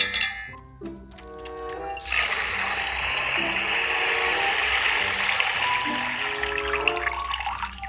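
A rush of running water lasting about four and a half seconds, starting about two seconds in and tailing off near the end, over background music with a simple plinking melody.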